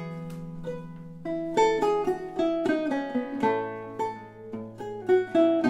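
Two Renaissance lutes played together in an improvised duet: a low note sustains through the first half while plucked melody notes run above it, then the bass moves to a new note a little past halfway. One of the lutes is plucked with a quill plectrum.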